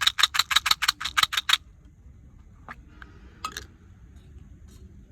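A fast run of about a dozen sharp clicks or taps, about seven a second, in the first second and a half, then two more single clicks a little later.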